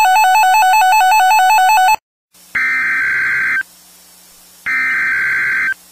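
An electronic ring tone trilling rapidly between two pitches, cut off about two seconds in. After a brief gap come two screechy Emergency Alert System SAME data bursts, each about a second long and about a second apart: the digital header that opens an EAS tornado warning.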